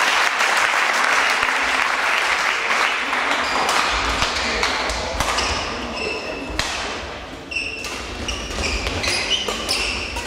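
Crowd applause in a sports hall dying away over the first few seconds, then a badminton rally: sharp racket strikes on the shuttlecock and shoes squeaking on the court floor.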